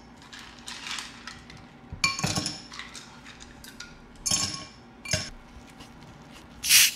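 Ice cubes dropped from a bowl into tall drinking glasses, clinking against the glass several times. Near the end comes a short, louder hiss.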